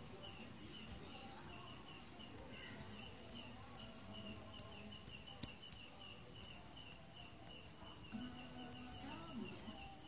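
Steady, faint high chirping, several short chirps a second at an even pace, with a few sharp clicks scattered through it and a low voice coming in near the end.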